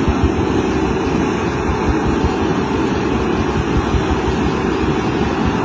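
Sen Rui 4QZ-2600 self-propelled silage harvester running steadily while harvesting: an even mechanical rumble with a constant hum, unchanged throughout.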